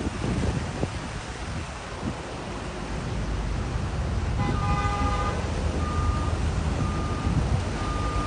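Steady low rumble of road traffic. A car horn sounds briefly about halfway through, then a short single-pitched beep repeats about once a second.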